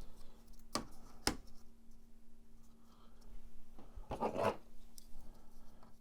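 Plastic diffuser panels for a Corvette digital instrument cluster being handled and set into the cluster housing: two sharp plastic clicks about a second in, then a brief scraping rub about four seconds in, over a faint steady hum.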